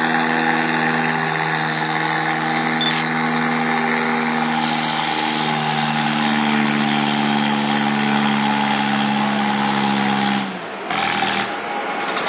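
Antique tractor engine working hard under load while dragging a weighted pulling sled: a steady, loud drone whose pitch steps up a little about halfway through. About ten and a half seconds in it drops off suddenly, then carries on much quieter as the pull ends.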